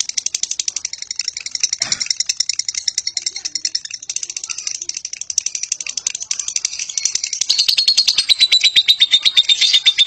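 Fischer's lovebird singing its long "ngekek" chatter: a rapid, unbroken high-pitched trill of fast pulses. It breaks briefly about four seconds in and grows louder in the last couple of seconds.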